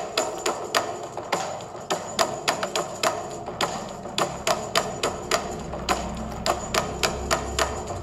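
Background music with a quick, sharp, wood-block-like percussive beat over sustained melodic tones; a low bass part comes in about halfway through.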